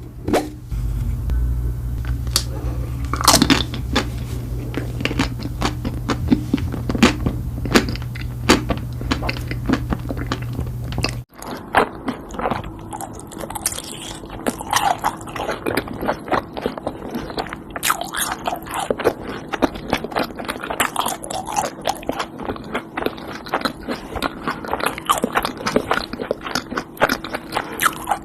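Crunchy bites and chewing of Korean food, many sharp crunches in quick succession. The sound changes abruptly about eleven seconds in, as a different eating recording begins.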